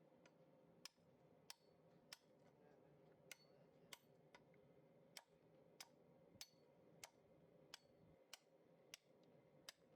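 Faint, evenly spaced ticking, about three ticks every two seconds, over near silence.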